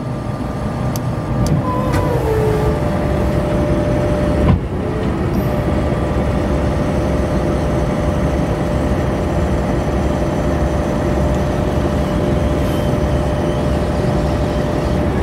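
Caterpillar T-series dozer's diesel engine running under load as the rear ripper's hydraulic cylinder moves the shank in and out, with a steady high whine over the engine. A single sharp clunk about four and a half seconds in.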